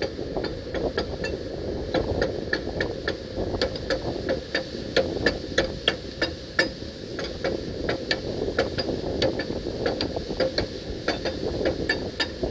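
Hand tool clicking and tapping on the steel rod end of a backhoe stabilizer hydraulic cylinder: sharp, irregular metallic clicks, two or three a second, with a slight ring. Wind rumbles on the microphone throughout.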